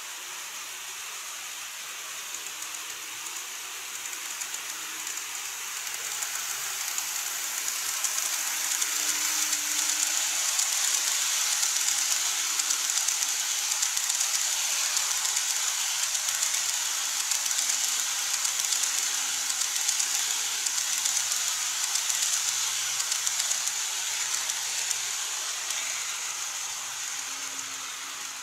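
Model train (an EF81 locomotive hauling 14-series coaches) running past on plastic viaduct track: a steady, hissy rush of small wheels on rails with a faint motor hum beneath. It grows louder over the first several seconds as the train nears and stays loud while the coaches pass close by.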